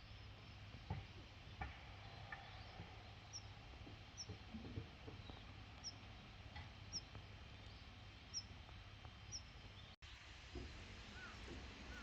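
Faint outdoor ambience with a small bird giving short, high chirps about once a second, with a few soft knocks early on. After a cut near the end, a lower, downward-sliding chirping call takes over.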